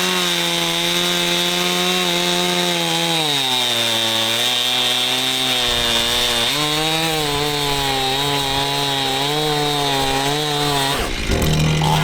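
Two-stroke chainsaw running at high revs while cutting firewood. Its pitch sags under load about a third of the way through and picks back up, and the sound breaks off shortly before the end.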